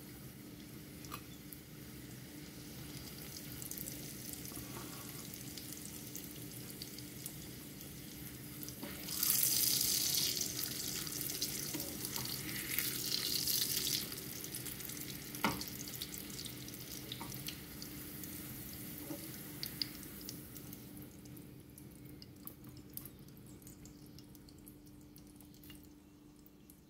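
Corn tortillas frying in hot oil in a skillet: a steady oil sizzle that swells loudly for several seconds near the middle and dies down toward the end. A single sharp click sounds just after the loud stretch.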